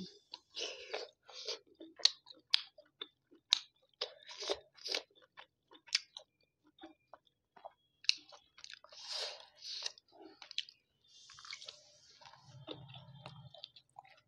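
Close-miked chewing of a steamed chicken momo dumpling: wet mouth clicks and smacks, a few each second. A short low hum comes near the end.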